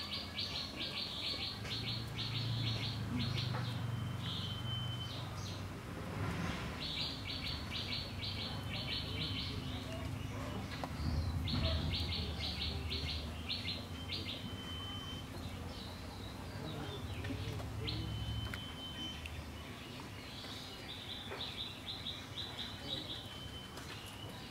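A songbird singing the same phrase again and again: a fast, rattling trill of high notes that ends in a short steady whistle, heard four times. A low rumble comes and goes underneath.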